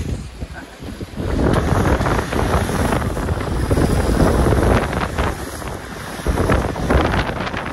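Strong gusty wind buffeting the microphone: a loud, rumbling noise that swells about a second in and gusts again near the end.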